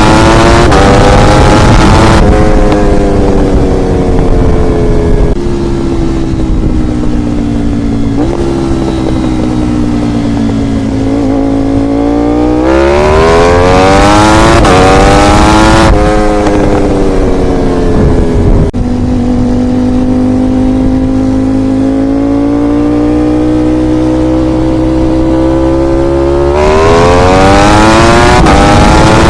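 Ducati V4R's V4 engine under a rider: it pulls up through a gear change at the start, drops in pitch through several downshifts as the bike slows, then accelerates hard through two quick upshifts. A long stretch at steady, slowly rising revs follows, and near the end it accelerates again through another upshift.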